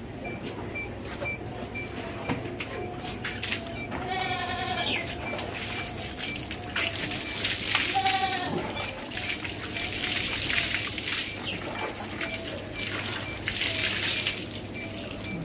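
A goat bleats twice, a long wavering bleat about four seconds in and a shorter one about eight seconds in. Underneath, water poured from a jug splashes over a cow and onto a concrete floor.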